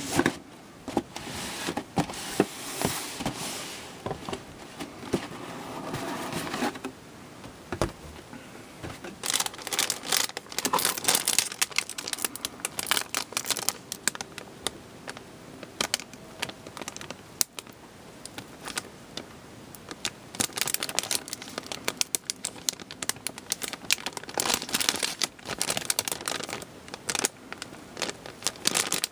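Clear plastic bags holding plastic model-kit runners crinkling and rustling as they are handled and turned over, in irregular spells with many sharp clicks.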